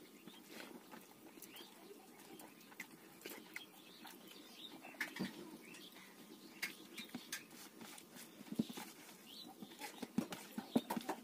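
Close-up eating sounds: wet mouth smacks and chewing, with soft clicks of fingers mixing and scooping rice on a steel plate. They come as a string of short, irregular clicks and smacks, with a cluster of louder ones near the end.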